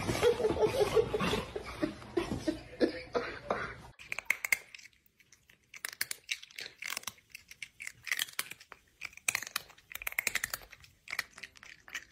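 A dog whimpering in short, repeated pitched cries over a busy background for the first few seconds. Then a cat makes a run of short, quick clicking, crunching mouth sounds.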